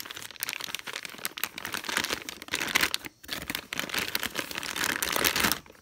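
Clear plastic bag crinkling as hands unwrap it, with a brief pause about three seconds in.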